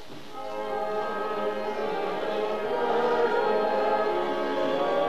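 A choir singing a slow, sustained hymn, growing louder over the first few seconds.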